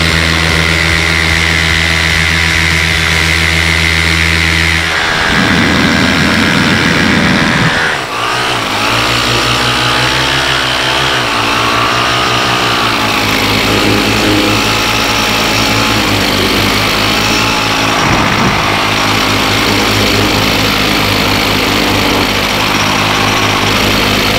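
Paramotor engine and propeller running hard through take-off and climb, the engine note wavering and shifting from about eight seconds in. A rush of wind noise comes in about five seconds in and lasts a few seconds.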